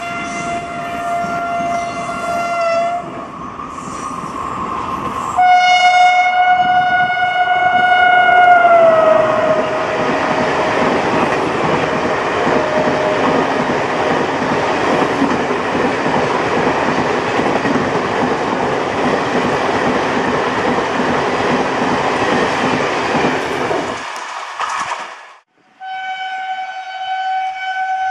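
A WAP-4 electric locomotive's horn sounds in two long blasts, the second falling in pitch as the locomotive passes. The Duronto coaches then rush past with wheel clatter for about fifteen seconds. After a cut near the end, a WAM-4 electric locomotive's horn sounds steadily.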